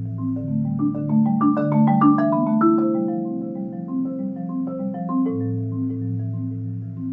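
Solo marimba played with four mallets: low chords held as soft rolls, with a run of higher notes climbing about a second in and then stepping back down over them.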